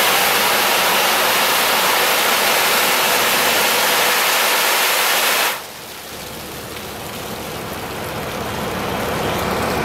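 Water gushing out of the open rear door of a Vactor sewer truck's debris tank and splashing onto the ground as the tank is emptied, a steady loud rush. About five and a half seconds in it drops off sharply to a quieter rush that slowly builds again.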